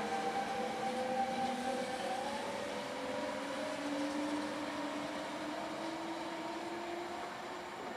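Trenitalia E.464 electric locomotive hauling a train of coaches away, its traction drive whining in several tones that slowly rise in pitch as it picks up speed, over the rumble of the wheels on the rails. The sound fades gently as the train recedes.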